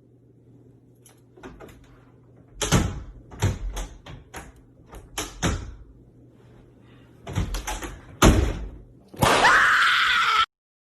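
A series of sharp knocks and bangs, like a door slamming, in irregular clusters, then a loud harsh noise with a high tone about a second long that cuts off suddenly.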